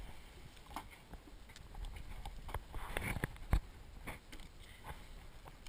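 Scattered knocks and taps of the handheld camera being moved and bumped on the boat, the sharpest about three and a half seconds in.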